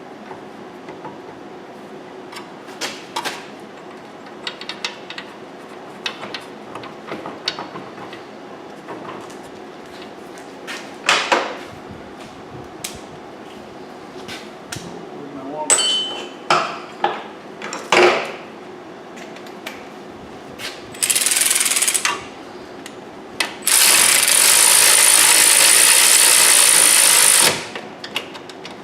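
Metal parts and tools clinking and knocking on a car's front hub during a wheel bearing replacement, followed by two loud steady hissing runs, one about a second long and one about three and a half seconds long, near the end.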